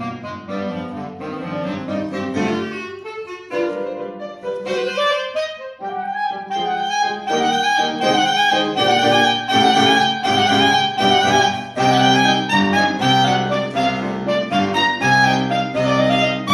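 Clarinet and grand piano playing a classical duet. About six seconds in, the clarinet holds a long note over piano chords and the music grows louder.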